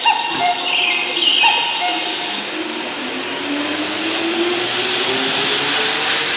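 Keihan 2600-series electric train pulling away from the platform: its traction motors whine, the pitch rising steadily as it speeds up. The rush of the cars going past grows louder from about halfway on. A few short electronic tones sound in the first second or so.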